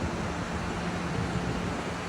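Steady rushing wind and surf-like noise with wind buffeting the microphone, and a low steady hum through most of the moment.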